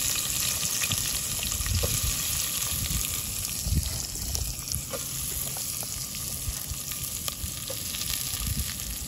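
Chopped red onions sizzling steadily as they fry in hot oil in a steel pot, with a few light knocks and clicks as more onions are tipped in.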